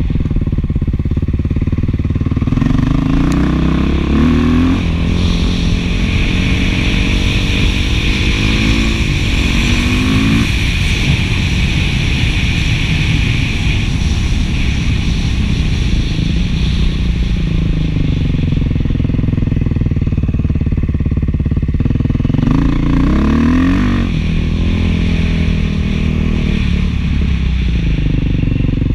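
Beta 500 dual-sport motorcycle's single-cylinder four-stroke engine, breathing through an FMF 4.1 muffler, running under way on a dirt road. The engine note climbs as it accelerates a few seconds in, again around eight seconds, and again after about twenty-two seconds.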